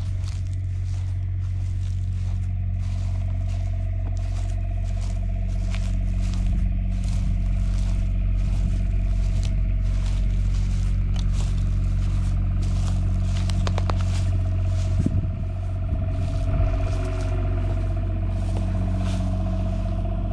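The motorhome's onboard generator running with a steady hum, charging the house batteries, while footsteps crunch on dry grass about twice a second.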